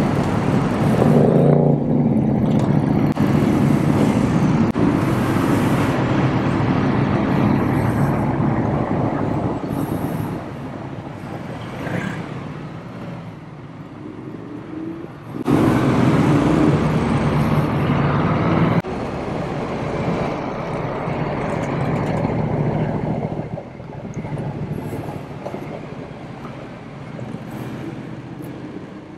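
Ducati motorcycle engines running as a group of bikes pulls away, with the rider's own motorcycle engine running underneath. The engine sound is loud at first and then quieter. It jumps suddenly louder about halfway through and drops back just as suddenly a few seconds later.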